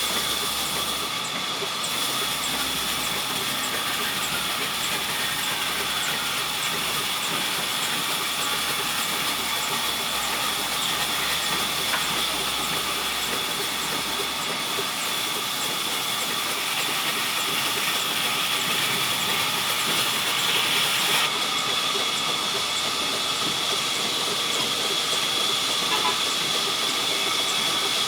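Sawmill saw and machinery running steadily: a constant high whine over a hissing noise, with no break.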